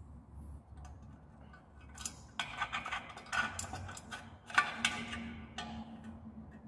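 Small metal parts of a scooter's kickstarter mechanism clinking and clicking as they are picked up and handled, a run of sharp clinks with brief ringing starting about two seconds in.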